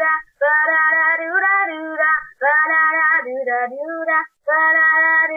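A young voice singing a melody with no clear words and no backing, in several held phrases with short breaks between.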